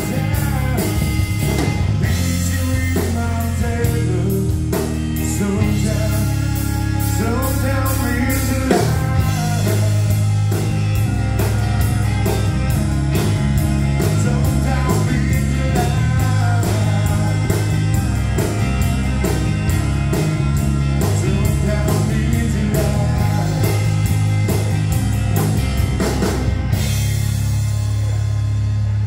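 Live rock band of electric guitars and a drum kit playing loudly, the drums keeping a steady driving beat. About two seconds before the end the drums stop and a low chord rings on.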